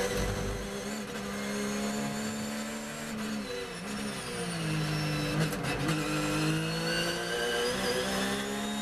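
Porsche 911 GT3 R race car's flat-six engine heard from inside the cockpit at racing speed. It is steady at first, drops in pitch about three and a half seconds in, gives a few sharp cracks around five and a half seconds, then climbs again as the car shifts, brakes and accelerates.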